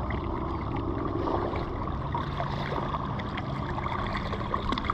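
Steady rush of moving river water, with a few faint small ticks and knocks.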